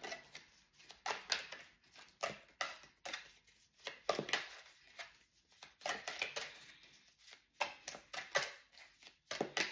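Tarot cards being shuffled and handled: an irregular run of short snaps and rustles.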